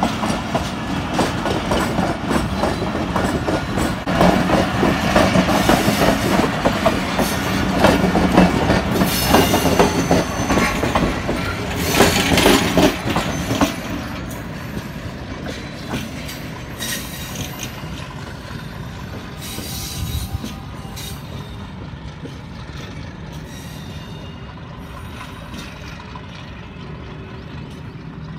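Millat Express passenger coaches rolling past close by, their wheels clattering over the rails. It is loud until the last coach passes about 14 seconds in, then fades as the train moves away down the track.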